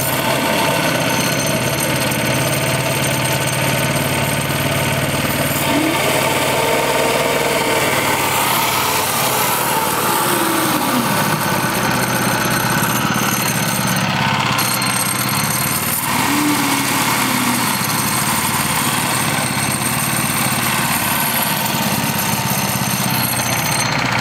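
Small gasoline engine running steadily, turning a roller chain drive to a gearbox and propeller shaft.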